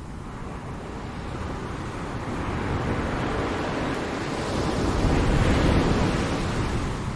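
Ocean surf: one wave swells in, breaks loudest about two-thirds of the way through, and washes back out, over a constant low rumble of the sea.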